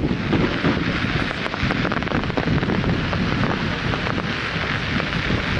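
Fireworks display: a dense, continuous crackle of many small bursts over a low rumble, with wind buffeting the microphone.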